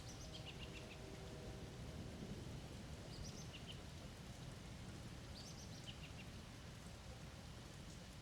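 A wild bird calls three times, each call a short run of notes falling in pitch, over a steady low rumbling background of the storm outdoors.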